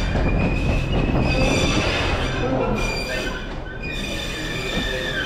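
09-16 CST track maintenance machine passing slowly: its diesel engine runs steadily beneath a continuous high-pitched squeal of its wheels on the rails.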